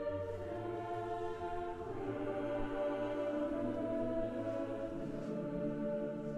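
Slow choral-style music: long held chords that change every couple of seconds.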